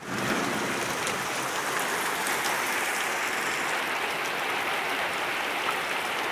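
Heavy rain pouring steadily, with a few sharper drop ticks.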